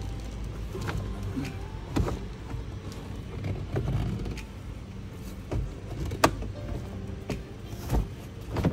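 Scattered knocks and clicks of a car's headliner board and plastic pillar trim being pushed into place by hand, the sharpest about two seconds in, just past six seconds, and at the very end, over a steady low hum.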